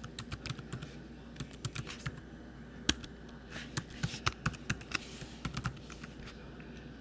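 Typing on a computer keyboard: irregular runs of short key clicks, with one sharper, louder click about three seconds in.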